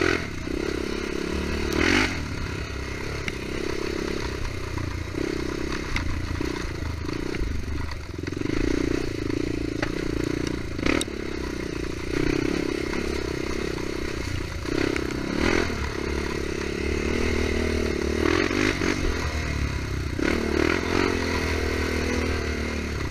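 ATV engine running and revving as the quad is ridden along, with a few sharp knocks and clatter over the ride.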